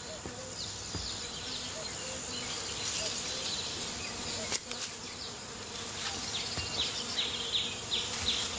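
Garden ambience of insects buzzing. Short, high, falling chirps repeat a few times a second, getting more frequent in the second half, and there is one brief click about halfway through.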